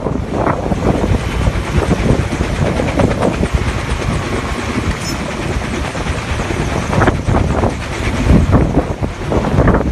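Helicopter hovering overhead, its rotor and turbine engine running steadily, with gusts of rotor downwash buffeting the microphone, strongest a few seconds before the end.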